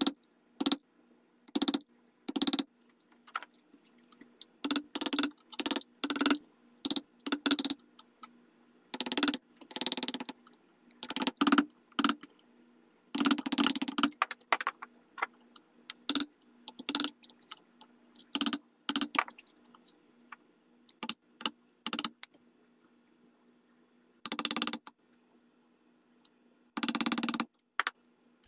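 Hand chisel paring and scraping small recesses into a walnut rifle stock: short, irregular cutting strokes, a few lasting about a second, with brief pauses between them.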